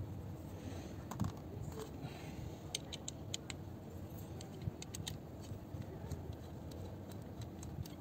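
Scattered light metallic clicks and rattles from a car seat height adjuster mechanism, a round metal ratchet unit with a lever, being handled and turned in the hands, over a steady low background rumble.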